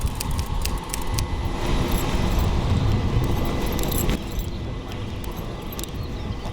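Metal gear jangling and clicking over a steady low rumble, which drops in level about four seconds in.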